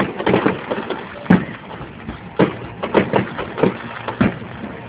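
Aerial fireworks bursting in the sky: a run of irregular sharp bangs, one every half second to second, each with a short echoing tail.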